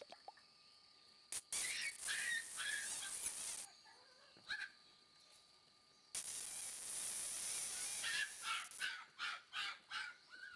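Shiba Inu puppy whimpering and yipping in short high cries, a quick run of about seven near the end. Two stretches of loud rushing hiss, starting about a second and a half in and again about six seconds in, are the loudest sounds.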